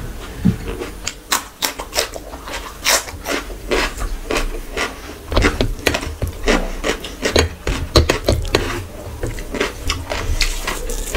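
A bare hand mixing and squeezing basmati rice with curry gravy, close to the microphone: a dense, irregular run of soft wet squishes and small clicks of fingers and grains.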